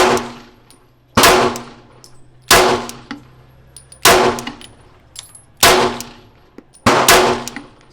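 A string of about seven sharp gunshots, roughly one every second and a quarter, with the last two close together. Each shot is followed by a ringing, clanging tail.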